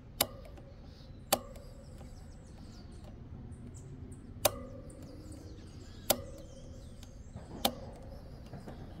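Needle-nose pliers working the spring clip onto a motorcycle chain's master link: five sharp metallic clicks, irregularly spaced one to three seconds apart, each with a brief ring.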